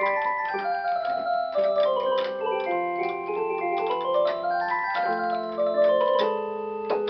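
Electronic keyboard playing its drawbar organ voice: quick runs of notes over held lower notes, each note starting with a sharp click.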